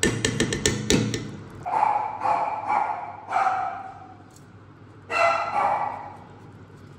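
A dog barking in two short runs, about four barks and then two more, each bark brief and pitched. At the start there is a quick run of sharp metal clinks.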